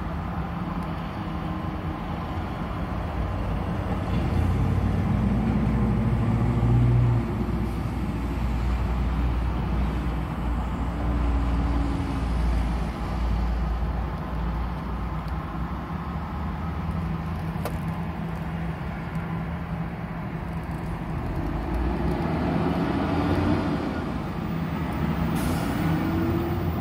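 Heavy road traffic: diesel semi-trucks and pickups pulling away through an intersection, engine notes rising and falling several times as they accelerate, over a steady low rumble.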